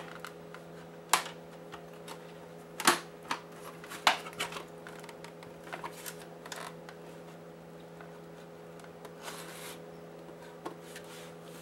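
Scattered sharp clicks and knocks of a PlayStation 4's plastic casing and panels being handled and shifted during disassembly, the loudest about a second, three seconds and four seconds in. A steady low hum runs underneath.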